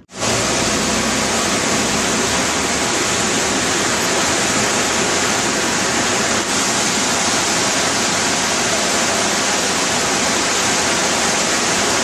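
Steady rush of water from Ravana Falls, a waterfall cascading down several rocky tiers.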